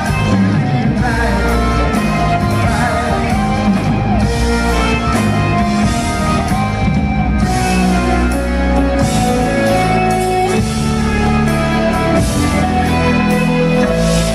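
Live progressive rock band playing loudly, led by electric guitar over drums and bass, heard from the audience in a large hall.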